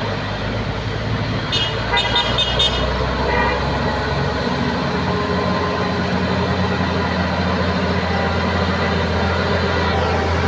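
Diesel engine of a heavy multi-axle cargo truck running steadily as it climbs and draws close, growing slightly louder near the end. A few short horn toots sound about two seconds in.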